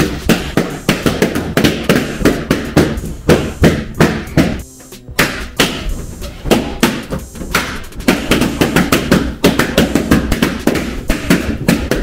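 Latex balloons popping one after another in quick, irregular succession as they are pricked with sharp pencils, with a short lull about five seconds in. Background music plays underneath.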